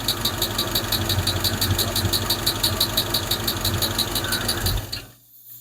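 Hemi V8 engine idling with a fast, even lifter tick: one lifter clanking pretty good, which the owner fears he damaged by running the engine with low oil pressure. The sound cuts off suddenly about five seconds in.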